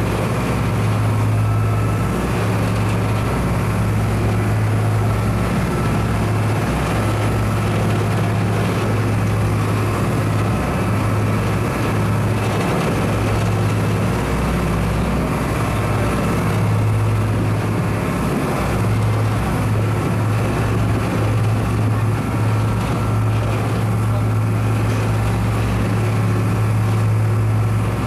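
A patrol vessel's engines running steadily under way: a constant low drone with a steady hum over a hiss of water and machinery noise.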